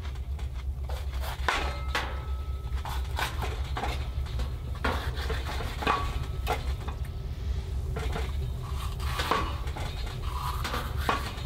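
Knife slicing a red bell pepper on a wooden cutting board: irregular knocks of the blade against the board, over a steady low rumble.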